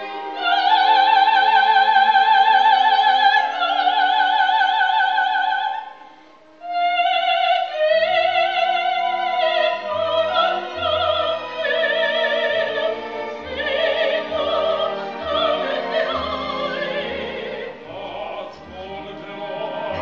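Operatic soprano singing long high notes with wide vibrato over a theatre orchestra, heard from the audience. The voice breaks off briefly about six seconds in, then the singing goes on, with the orchestra's low bass notes sounding in a steady pulse through the second half.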